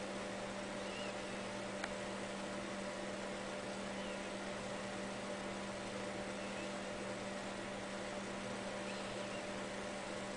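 Steady electrical hum over a hiss, with one faint click about two seconds in.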